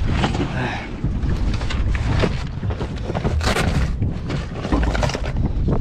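Irregular knocks and thumps on a boat deck, with wind rumbling on the microphone, as a freshly landed giant trevally is handled for a quick release.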